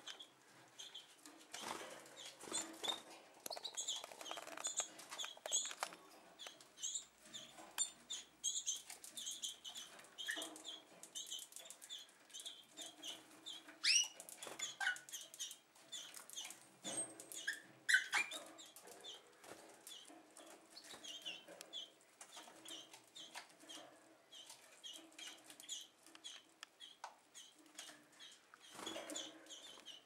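Domestic canaries in an aviary chirping with many short, high call notes, with the flutter of wingbeats as they move about. A couple of louder, sweeping calls stand out, about halfway through and a little later.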